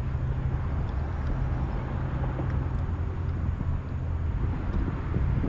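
A small motor hums steadily at a low, constant pitch under a constant hiss.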